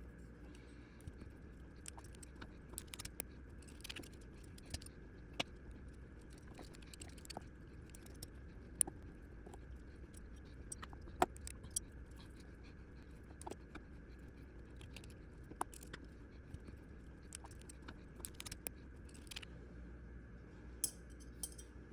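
Small metal parts of a folding knife clicking and clinking as it is taken apart by hand: scattered light clicks at irregular intervals over a faint low hum.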